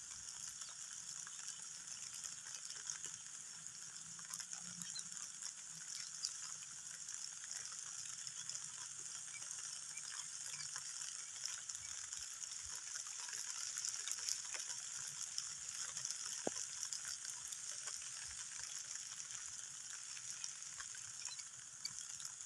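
Steady hiss of falling rain with many small crackling drop impacts, a little louder around the middle.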